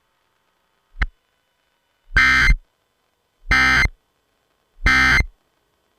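Emergency Alert System end-of-message signal: three short bursts of digital data tones, about a second and a half apart, marking the end of the broadcast warning. A brief click comes about a second in.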